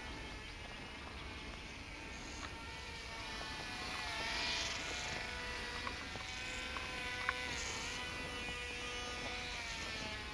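Silverlit X-Twin Turbo-Fury RC plane's twin small electric motors and propellers buzzing in flight: a steady whine of several tones that drifts slowly in pitch and swells briefly about four seconds in.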